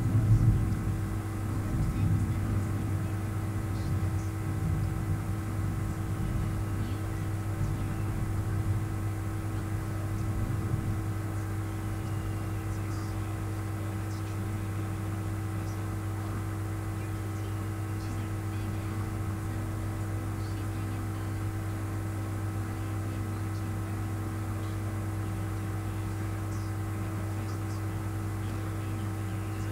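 A steady low hum with several held tones, with faint speech over it for the first ten seconds or so.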